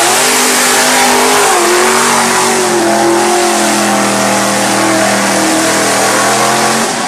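Mud-bog truck's engine at full throttle as it plows through a mud pit, with a strong hiss over it. The pitch dips in the first second or so, then climbs and holds high and steady before cutting off suddenly near the end.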